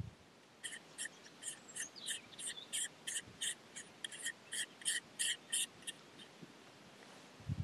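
Squeaky rubbing strokes, about four a second, running for about five seconds and stopping before the end.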